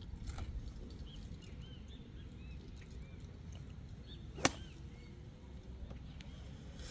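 A golf club strikes a ball: one sharp crack about four and a half seconds in, with birds chirping in the background.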